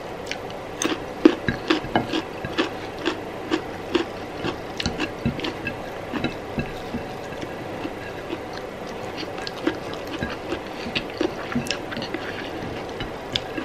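Close-miked eating sounds: a person chewing a mouthful of rice and curry, with irregular small wet clicks and smacks that are busiest in the first few seconds and again near the end.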